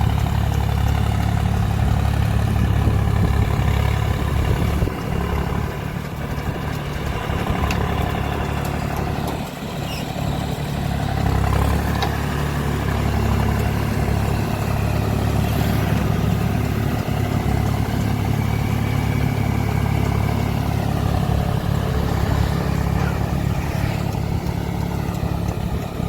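Tractor engine running steadily under load as it drives a rotavator through a flooded paddy field, puddling it. The pitch dips and recovers briefly a few seconds before the end.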